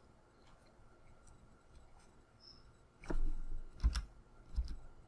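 A few short clicks and knocks with a dull thud, starting about three seconds in and coming again twice over the next second and a half after a quiet start.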